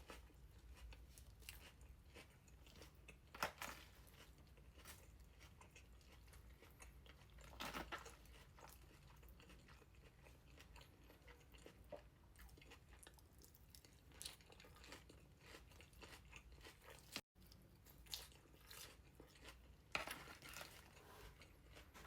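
A person chewing and crunching food, with quiet mouth sounds and a few louder crunches spread through.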